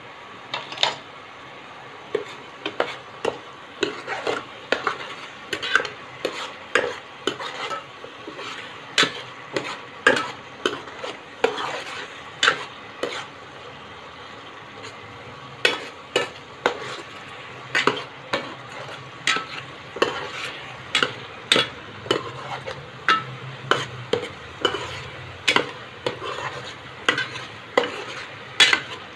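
Stainless steel ladle stirring a thick curry masala in a pan, scraping and knocking against the pan about once or twice a second over a steady low sizzle. The stirring pauses for a couple of seconds about halfway through.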